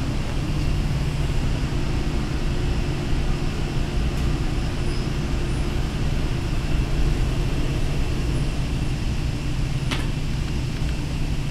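A steady low mechanical hum, with one sharp click about ten seconds in as the hydraulic elevator's doors finish closing.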